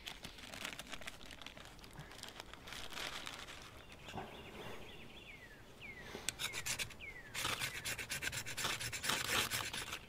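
Knife blade scraping thin curls of tinder off a wooden stick held on a stone, in repeated rasping strokes that come faster and louder over the last three seconds.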